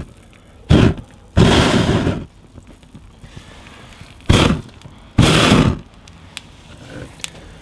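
A person blowing hard at flames on a burning rubber suspension bush, in two pairs of blasts: a short puff, then a longer blow, twice.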